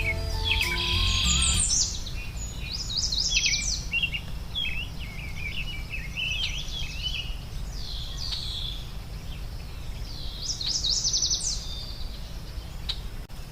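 Several songbirds chirping and singing in quick, high trills and short calls. Soft music fades out in the first couple of seconds, over a steady low background noise.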